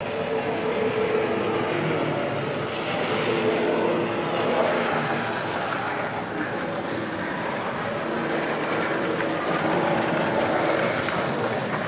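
OO gauge model train running along the layout's track: a steady mechanical running noise of wheels on rail with a faint hum.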